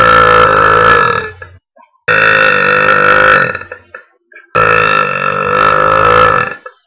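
A girl burping on purpose: three long, loud, piercing burps in a row, each about two seconds long with a fairly steady pitch. The first is already under way at the start.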